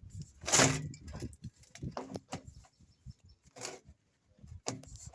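Animal calls: one loud, pitched call about half a second in, then a few shorter, fainter calls.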